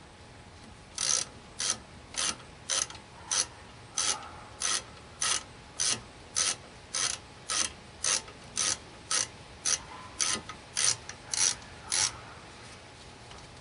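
Socket ratchet with a 12mm socket tightening a brake caliper bolt: about twenty short ratcheting spurts, roughly two a second, as the handle is swung back and forth.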